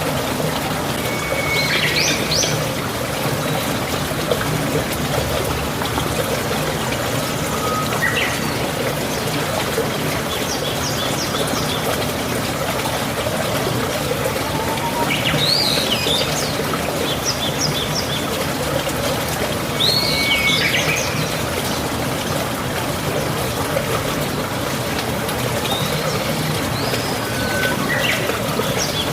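Steady running water, like a trickling stream, with birds chirping and trilling briefly every few seconds.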